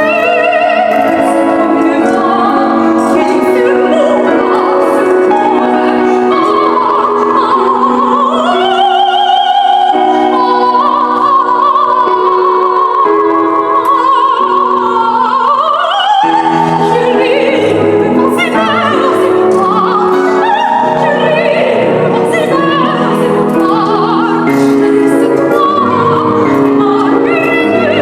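Soprano singing an opera aria with strong vibrato over piano accompaniment, holding long sustained notes in the middle.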